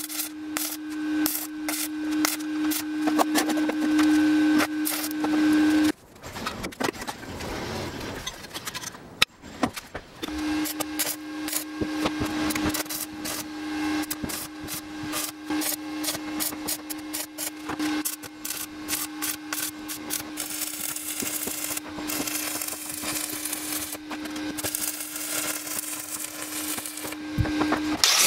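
Stick (arc) welding: the electrode's arc crackles and sputters over a steady hum. The arc breaks off about six seconds in, with a sharp knock during the four-second pause, then strikes again and runs on.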